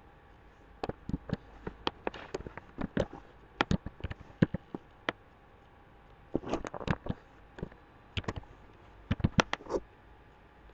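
Computer keyboard typing: quick bursts of key clicks, with a short pause about halfway through.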